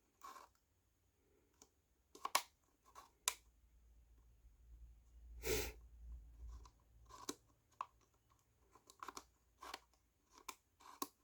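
Small wooden tiles of a laser-cut slide puzzle box being slid and knocked against each other and the frame: a series of short, irregular clicks and scrapes, with a heavier knock and low thump about five and a half seconds in.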